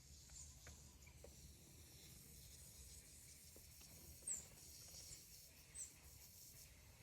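Faint, short, high-pitched chirps of a small bird, three times, each dropping quickly in pitch, over a quiet outdoor background.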